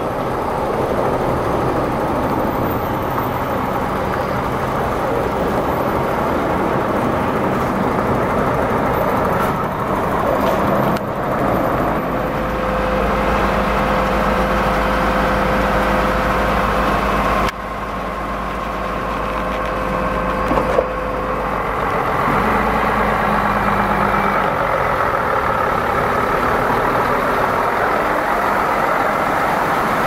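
Heavy truck diesel engines and hydraulic machinery running steadily, with a low rumble and a steady hum. The sound shifts abruptly a few times.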